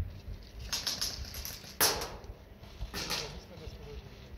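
Airsoft rifle fire: sharp snapping shots in short clusters about a second apart, the loudest near the middle, with faint distant voices underneath.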